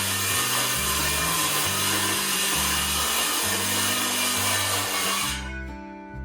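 A power tool working wood, most likely a saw cut: a steady, loud rushing noise for about five seconds that stops near the end. Background music with a plodding bass line runs underneath.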